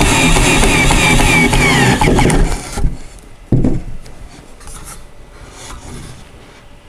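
Cordless drill driving a screw into a wooden chair rail, its motor running steadily with a quick run of squeaks before it stops about three seconds in. A single thump follows, then light handling of the wooden chair.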